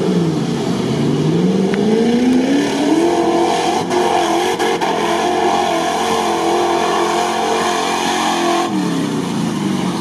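Engines of a Nissan Patrol and a stripped-down V8 Range Rover revving hard as the two 4x4s launch and race through deep mud. The revs climb over the first few seconds, hold high and waver, then drop away sharply near the end.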